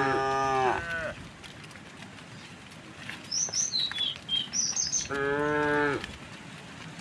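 Cattle mooing: one long call tails off about a second in and another comes about five seconds in. Between them, a bird gives a run of short high chirps.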